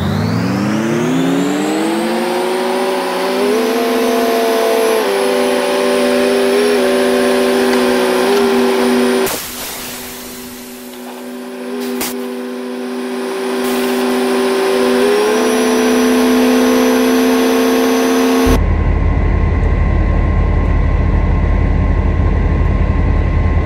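A diesel engine revs up, rising steeply in pitch over the first few seconds, then holds steady at high speed. It dips around ten seconds in, and about three-quarters of the way through it gives way suddenly to a steady low rumble.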